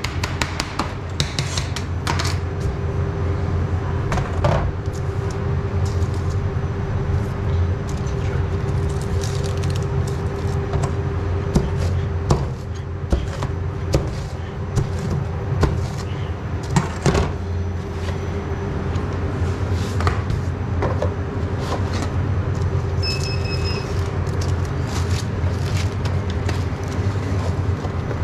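Steady low hum of kitchen machinery, with scattered knocks and clicks as a long knife is pressed down through a square pizza onto a stainless-steel counter. A brief high tone sounds once, a little past two-thirds of the way through.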